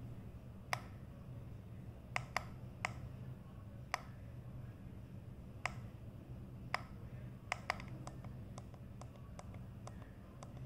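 Tuning buttons of a CS-106 DSP pocket radio clicking as they are pressed one by one, about fifteen sharp clicks at irregular intervals that come faster near the end, over a faint steady low hum.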